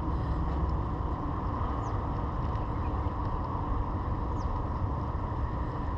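Steady low outdoor rumble with no distinct event, and a few faint short high chirps, falling in pitch, about two seconds, four and a half seconds and six seconds in.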